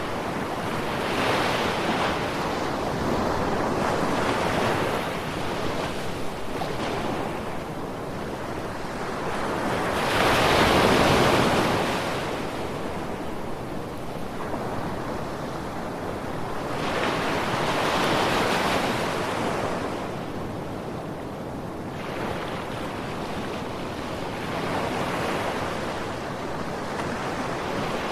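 Ocean waves breaking and washing up the shore, a steady rush of surf that swells and falls back every several seconds. The loudest wave comes about eleven seconds in.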